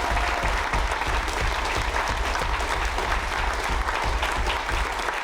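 Live audience applauding steadily, with a low rumble underneath.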